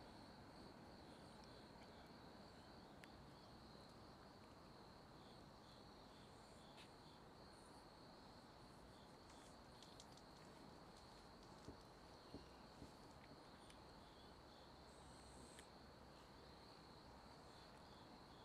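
Near silence: a faint, steady, high insect trill over low background hiss, with three soft taps about two-thirds of the way through.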